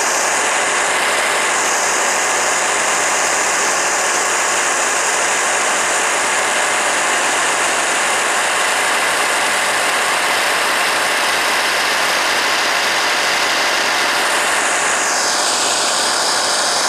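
Electric chopper running continuously, its blade grinding dried walnuts into a paste. Near the end a high whine within the motor noise falls in pitch.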